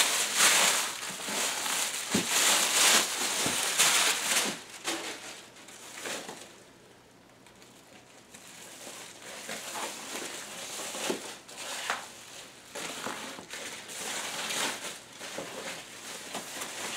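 Plastic wrapping crinkling and rustling as it is pulled off a speaker, in irregular handling bursts. The rustling is densest in the first few seconds, goes quiet for a few seconds in the middle, then picks up again with scattered crinkles and small knocks.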